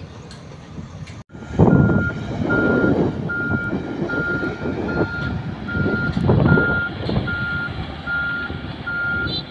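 Motor grader's diesel engine running under load while it reverses, its reversing alarm beeping steadily about once every three-quarters of a second. The beeping starts a little over a second in, after a brief break in the sound.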